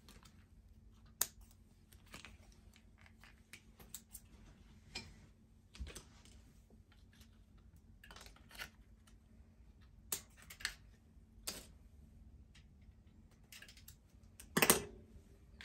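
Scattered light clicks, taps and rustles of items being handled on a metal wire grid wall board: clips, prints and hanging trinkets. Near the end comes one louder clack that rings briefly.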